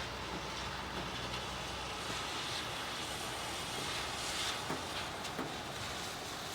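Steady rain, with a vehicle passing on the wet street. Its tyre hiss swells through the middle of the clip and then fades.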